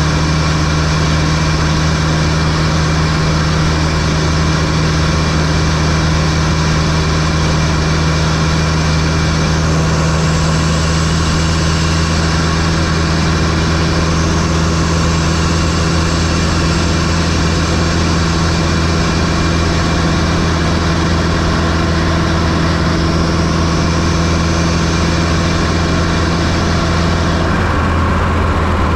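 1995 Fiat Coupé 2.0 16V turbo engine running steadily at constant speed, heard from inside the engine bay, with a constant hiss over the engine note. Near the end one of the engine's tones drops out and the hiss thins.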